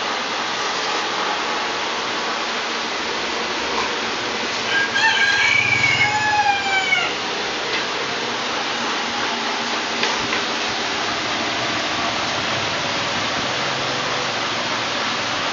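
A rooster crows once, about five seconds in: one long call that holds and then falls in pitch at its end. Under it runs a steady, even noise.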